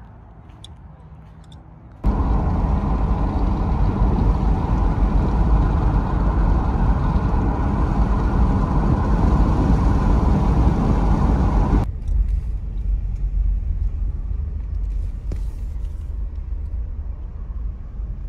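Road and engine noise inside a moving car's cabin, a steady low rumble that starts abruptly about two seconds in after a quiet stretch. About twelve seconds in it drops to a softer rumble as the car slows into a parking lot.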